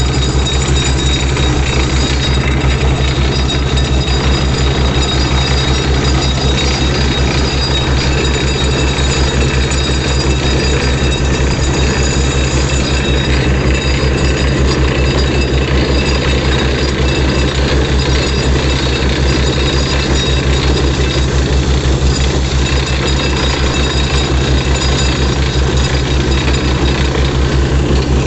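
Truck-mounted borewell drilling rig running steadily: a loud engine and air-compressor drone under the rapid, even hammering of the down-the-hole air hammer as it drills, with no let-up.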